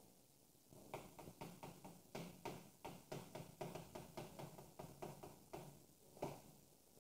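Chalk on a blackboard as characters are written: a quick run of short taps and scrapes, about four or five a second, starting about a second in, with one sharper tap near the end. Faint.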